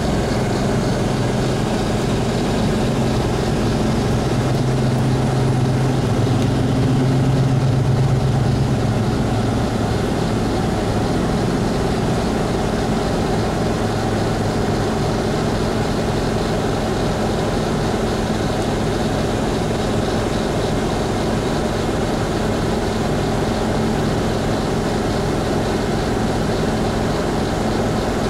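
Passenger train passing: a steady rumble of coaches rolling by, with a low engine hum that swells between about four and ten seconds in.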